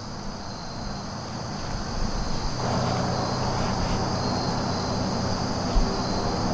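Crickets and other insects chirring steadily in the woods. About two and a half seconds in, a distant low rumble of engine noise rises and holds.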